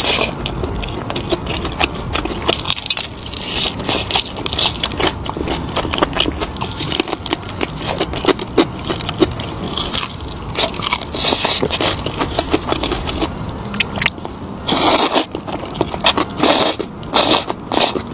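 A person eating close to the microphone: chewing and crunching with many small clicks and scrapes. The louder crunches come near the end.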